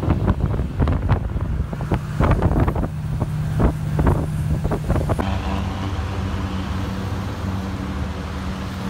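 Riding inside a moving bus: engine rumble with frequent rattling knocks and clatter. About five seconds in, this gives way to the steady hum of busy road traffic.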